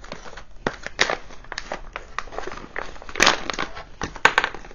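Crinkling and crackling of a diamond-painting toolkit pouch being opened and its cellophane-wrapped contents pulled out, in irregular bursts, loudest about three seconds in and again just after four seconds.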